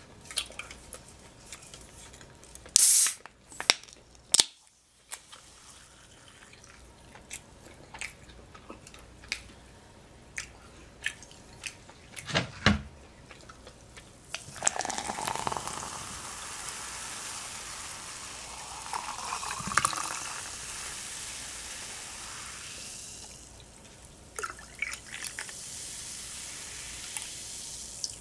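Sparkling water poured from a can into a glass, a steady fizzing pour for several seconds from about halfway through, settling to a lower fizz near the end. Before it, scattered clicks and taps, with a short loud burst about three seconds in.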